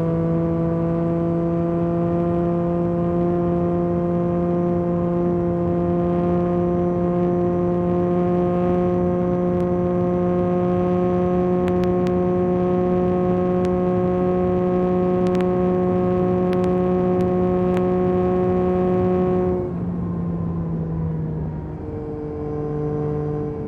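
Yamaha MT-09 SP's three-cylinder engine through an Akrapovic carbon exhaust, cruising under load with its note climbing slowly and steadily. About twenty seconds in the throttle closes, the sound drops, and the engine note steps down in pitch twice.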